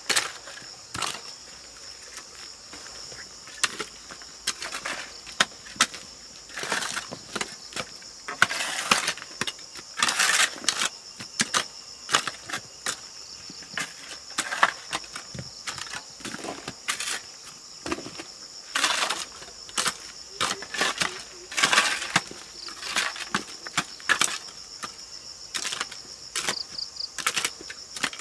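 A steady high chirring of insects, with irregular knocks, clatters and rustles of something being handled over it.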